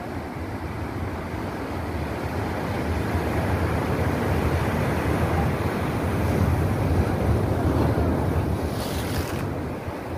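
Ocean surf washing over a rocky reef, with wind buffeting the microphone in a heavy low rumble. The sound swells to its loudest past the middle and eases near the end, with a brief sharp hiss shortly before it fades.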